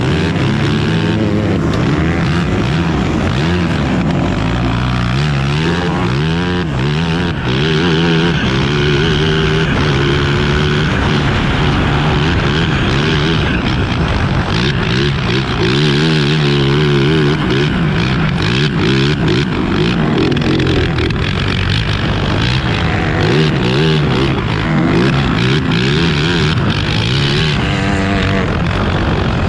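2009 Yamaha YZ450F single-cylinder four-stroke engine driving a grass kart at race pace, heard onboard. It revs up and drops back again and again through gear changes and corners.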